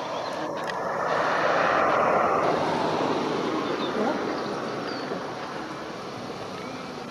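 Jet airliner passing, its engine roar swelling to a peak about two seconds in and then slowly dying away.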